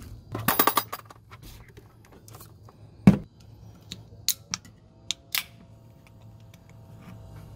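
Handling sounds of a can on a plastic fridge lid. There is a quick run of clicks at the start, one solid knock about three seconds in as the can is set down, and a few light metallic ticks from fingers at the can's tab. A faint steady hum comes in near the end.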